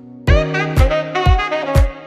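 Background music with a steady beat, about two beats a second, under held chords and a melody.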